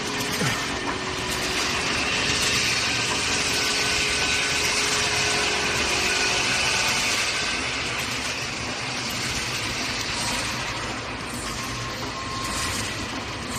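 Automatic steel wire mesh welding machine running: a steady, dense mechanical noise, heaviest in the higher range, with no clear beat.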